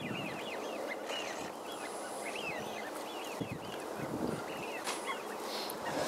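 A flock of birds calling: many short, overlapping rising-and-falling calls, over a steady background hiss.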